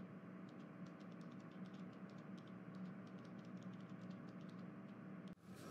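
Faint room-tone hum with light scattered ticks. It drops out for a moment near the end.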